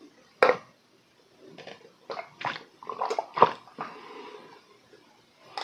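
Gulping swallows of iced milk tea chugged from a glass mug: a string of short gulps, the loudest about half a second in, then a run of about two a second from two seconds in.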